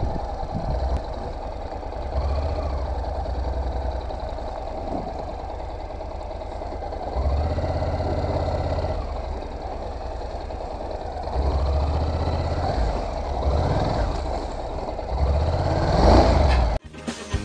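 Honda NC700X's parallel-twin engine running under way, its revs rising and falling with the throttle several times. A sudden cut to music comes near the end.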